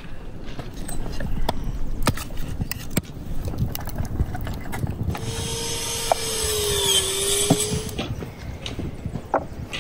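Wood fire crackling with sharp irregular pops, joined from about halfway through by a steady hiss with a faint whistling tone that lasts some three seconds.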